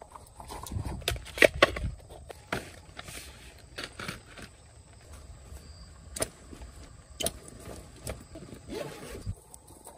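Camping gear being handled during tent setup: scattered, irregular knocks and clicks with brief rustles.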